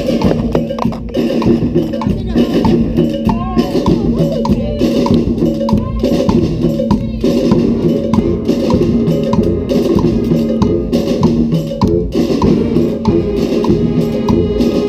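Brass street band playing an afrobeat tune: horns carrying the melody over hand percussion and drums keeping a steady groove.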